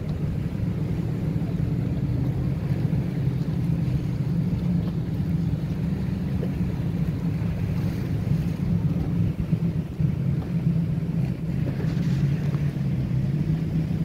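Several motorboats' engines droning steadily as they pass across open water, with wind buffeting the microphone.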